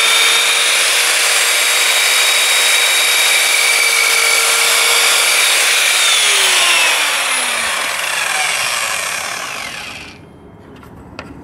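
Evolution R210CMS 210 mm compound mitre saw running at full speed with a steady high whine while its blade is lowered through a piece of wood. About six seconds in, the pitch starts to fall as the motor winds down, and the sound fades away near the end.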